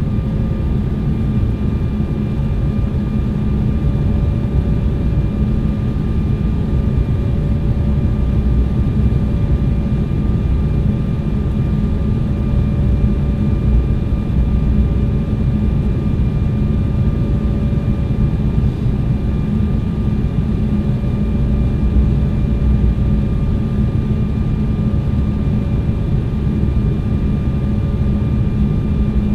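Steady cabin noise inside a jet airliner on approach to land: a low rumble of engines and airflow over the wing, with a faint steady whine on top.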